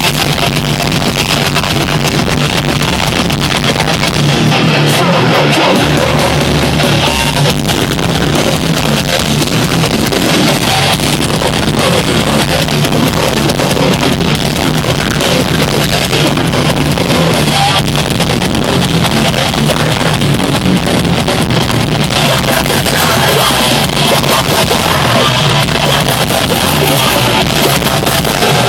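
Metalcore band playing live, with loud distorted guitars and drums. The sound is harsh and overloaded, as from a crude concert recording.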